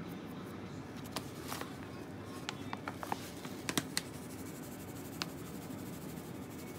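A small glass cup giving a series of light, sharp clicks and ticks as dried sea lettuce is shaken from it over a plate of food, the loudest few together in the middle, over a steady low hum.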